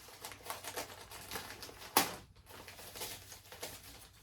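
Packaging being handled and unwrapped by hand: a run of small, irregular crackles and rustles, with one sharper snap about two seconds in.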